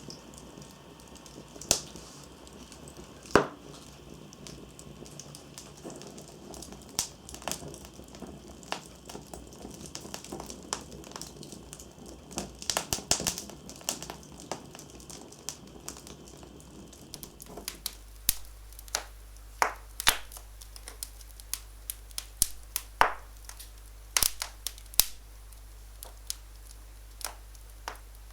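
Wood fire in a fireplace crackling, with sharp pops at irregular intervals. About two-thirds of the way through, the soft background rush drops away and the pops stand out more clearly.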